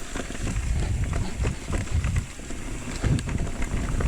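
Electric mountain bike riding over a rough dirt trail. Wind rumbles on the camera microphone, mixed with scattered clicks and rattles from the tyres and frame over rocks and roots.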